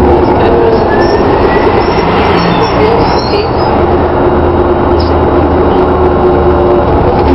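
DAF DB250LF double-decker bus with a Voith three-speed automatic gearbox running, heard from inside the passenger saloon: a steady loud diesel drone. A rising whine climbs over the first couple of seconds, and brief high squeals come in the middle.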